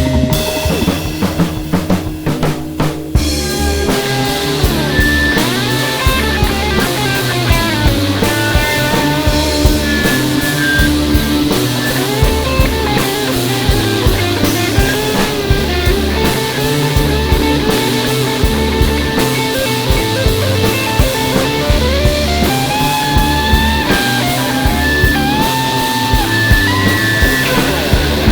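Instrumental rock music: a drum kit keeps a steady beat under bass and electric guitar, with the lead guitar playing bending melodic lines. A short drum-led break opens it before the full band comes back in about four seconds in.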